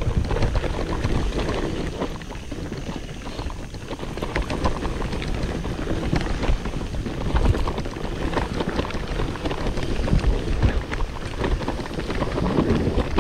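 Mountain bike riding down a dirt downhill trail, with wind buffeting the microphone, tyre rumble and frequent rattling knocks over rough ground.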